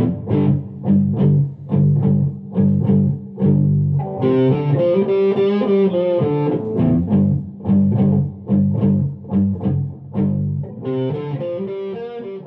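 Outro music led by guitar, with plucked notes on a steady beat and a bass line, fading out at the end.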